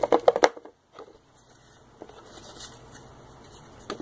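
A quick burst of rattling clicks from paper slips being stirred in a clear plastic tub, in the first half-second. Then faint, scattered handling ticks as a slip is picked out.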